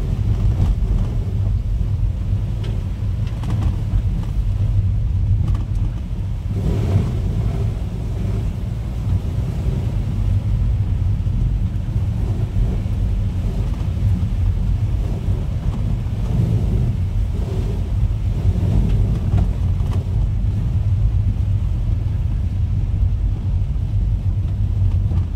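A car driving on a wet road, heard from inside the cabin: engine and tyres give a steady low rumble. A brief louder hiss comes about seven seconds in.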